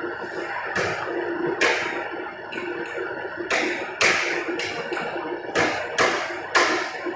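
A series of sharp taps or knocks, about seven at uneven spacing, each ringing briefly, as in hand work on a workpiece in a woodworking shop.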